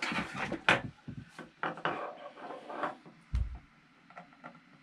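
Handling noise at a desk: irregular clicks and knocks with some rubbing, and one dull low thump about three and a half seconds in.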